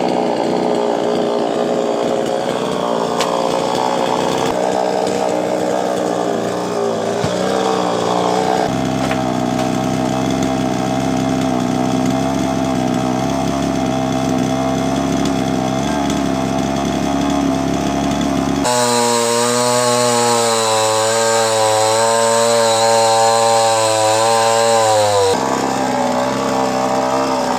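Chainsaw running at high revs while cutting a coconut palm. Its engine note changes abruptly several times and sags slightly in pitch just before the last change.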